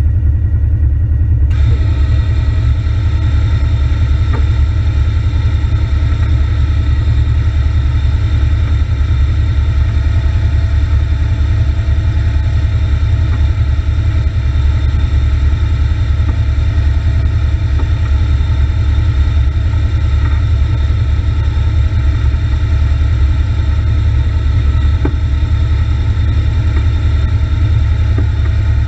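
Side-by-side off-road vehicle's engine running at a steady idle, heard from inside the cab as a loud, even low rumble. A steady higher whine joins about a second and a half in and holds.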